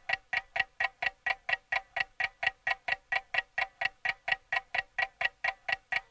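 Steady clock-like ticking, about four evenly spaced pitched ticks a second, from a background soundtrack rather than the pencil.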